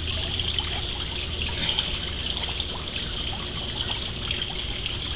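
Steady trickle of running water, with a low steady hum underneath.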